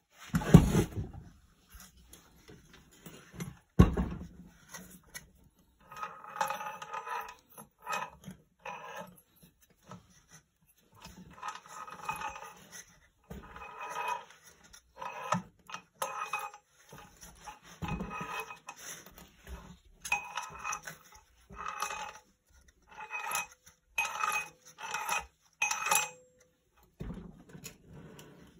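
Metal parts of a small generator being handled: two heavy knocks near the start, then many short, high squeaks in clusters as the housing is moved.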